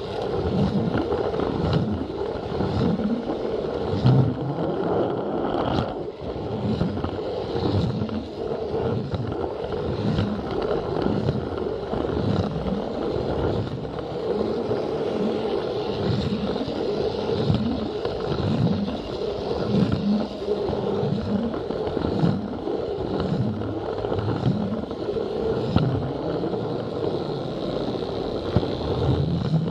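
Plarail toy train running along plastic track: a steady whir from its small electric motor under a continuous rattle and clatter of wheels over the track.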